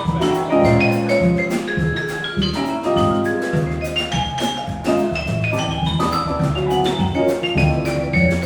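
Small jazz combo playing live: a solo of quick runs of short notes climbing and falling, over bass and drums.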